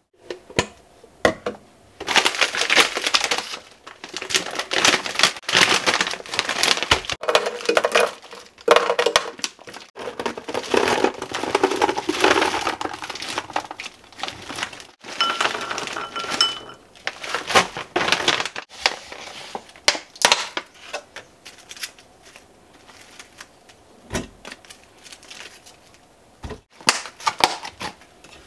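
Food-prep handling in a kitchen: plastic packaging and containers rustling and clattering, with frozen blueberries knocking as they are scooped out of a plastic jar. The handling is busiest in the first half, then turns into scattered knocks and clicks.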